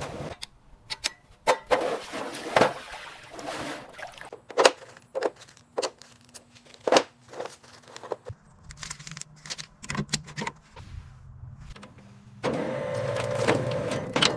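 A run of sharp clicks and knocks, like hand work on metal parts, over a faint steady hum. About twelve seconds in, a louder steady mechanical noise starts and runs to the end.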